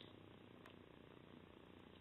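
Near silence: faint steady background noise, with one faint click about two-thirds of a second in.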